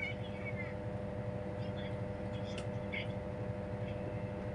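Steady room hum: a constant droning tone over a low rumble, with a few light clicks and faint high chirps.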